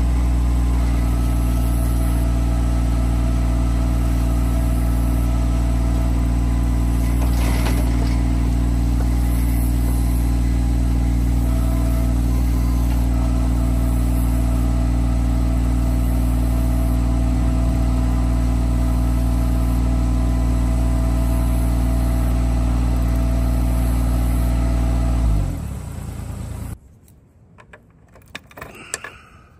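Massey Ferguson GC1723E compact tractor's diesel engine running steadily at a constant speed while its backhoe digs a trench. Near the end the engine sound drops away, leaving a few faint clicks of a key in an ignition.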